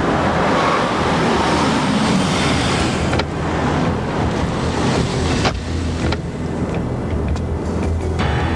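Road traffic noise from passing cars, a steady dense rush with a low hum beneath. It breaks off abruptly a few times, about three seconds in and again around five and six seconds.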